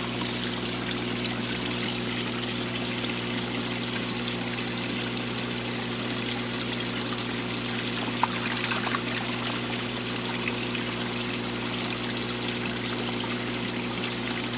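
Water running and splashing steadily around ranchu goldfish in a plastic colander basket, with a steady low hum underneath and a few small clicks about eight seconds in.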